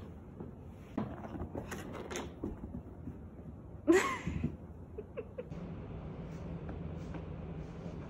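A ragdoll cat scrambling and running on a rug: scattered thumps and scuffles of paws, with a short, sharp voiced cry about four seconds in.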